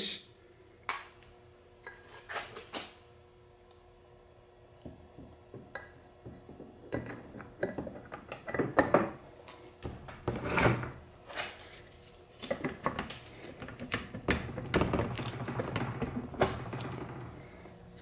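Cast aluminium extension housing of a Borg-Warner T5 transmission being worked onto the main case by hand: irregular metal clunks and knocks with some scraping, busier in the second half as the housing is slid into place.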